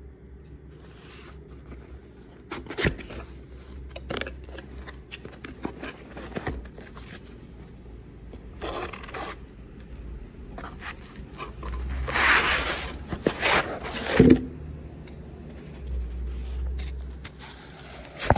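Hands opening and handling a small cardboard box and its packaging: scraping and rustling with scattered clicks and knocks. The longest scrape comes about twelve seconds in and ends in a sharp knock, all over a low steady hum.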